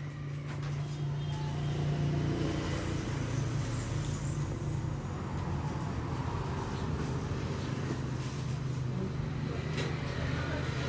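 Steady low mechanical hum, like a motor running, that builds over the first two seconds and then holds.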